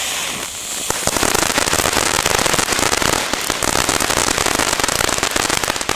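Weco Gunpowder Barrel firework fountain burning: its steady hiss turns about a second in to loud, dense crackling. The crackling stops abruptly at the end as the fountain burns out.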